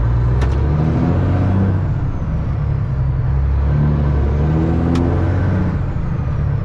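Kenworth W900 semi truck's diesel engine heard from inside the cab, pulling away: its pitch climbs twice with a drop in between as it goes up through the gears. A sharp click sounds about half a second in and another about five seconds in.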